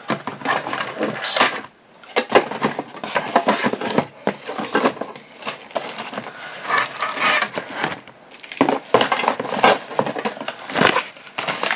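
Small electronic components and packaging being handled and packed back into a box: irregular clicking, rattling and rustling.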